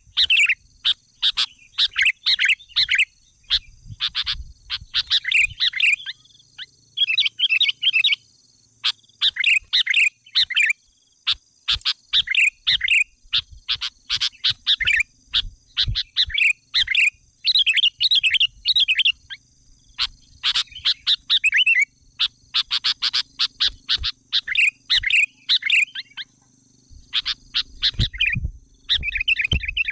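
Bird chirping: short phrases of quick, high twittering notes repeated every second or two, with a faint steady high tone underneath.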